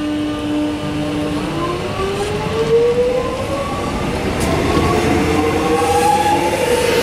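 X'Trapolis electric multiple unit accelerating away. Its traction motors give a steady whine for about a second and a half, then a whine of several tones rising steadily in pitch over wheel and rail rumble, getting louder.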